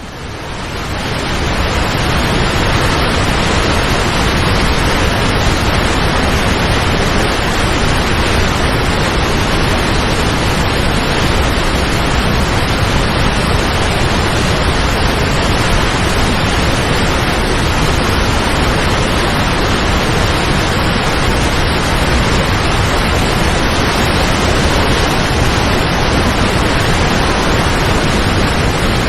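Paulo Afonso waterfall: a steady, loud rush of falling water that fades in over the first two seconds and then holds level.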